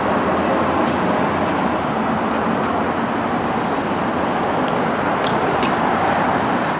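Heavy city traffic: a steady wash of engine rumble and road noise, with two sharp clicks a little after five seconds in.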